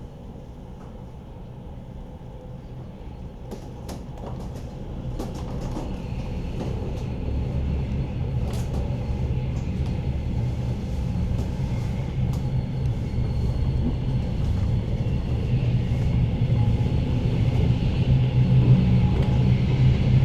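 Suburban train pulling out of the station, heard from inside the carriage: a steady low running rumble that grows gradually louder as the train gathers speed, with a few scattered clicks and knocks.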